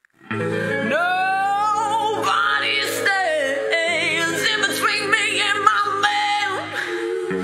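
A woman singing solo with wide vibrato and sliding notes over a backing track of sustained chords. The sound drops out for a moment right at the start.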